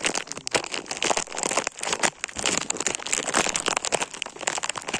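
Plastic bag crinkling and rustling as it is handled close to the microphone, a rapid irregular crackle.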